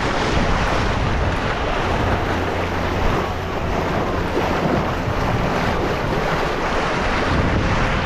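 Strong wind buffeting the microphone over the steady rush of sea water and waves at the bow of a sailboat under way.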